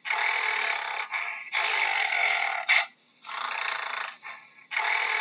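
Gorilla breathing heavily in hoarse, breathy huffs. There are about four breaths, each roughly a second long, with short pauses between them.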